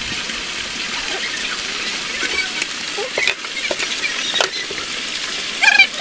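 Steady rushing of water, like a waterfall or stream running close by, with a short high gliding call near the end.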